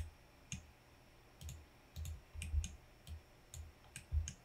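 Computer mouse clicking, about eight or nine irregular clicks, each with a faint thud on the desk.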